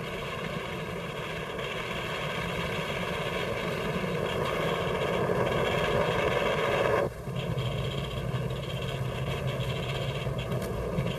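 Machinery of an early 1960s computer room running: a steady mechanical whir that grows louder, then changes abruptly about seven seconds in to a steadier hum with a low drone.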